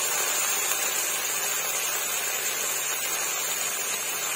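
Cut vegetables sizzling in hot oil in a wok: a steady hiss.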